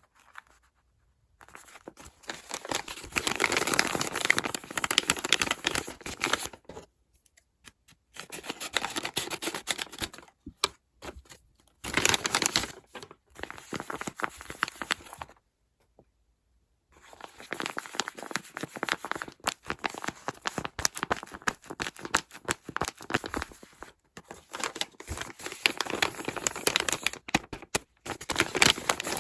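Paper of a handmade paper squishy blind bag being torn open and crinkled, in crackly bursts of a few seconds with short pauses between them.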